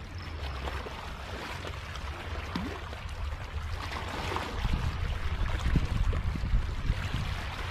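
Small harbour waves lapping and washing over a shallow rock shelf, with wind rumbling on the microphone.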